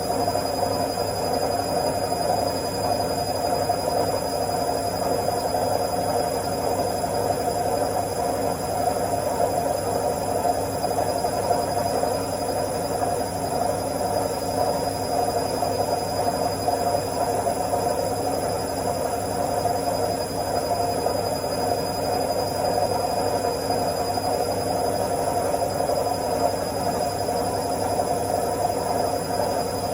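Washing machine on its spin cycle: a steady, unbroken hum with a faint high whine above it.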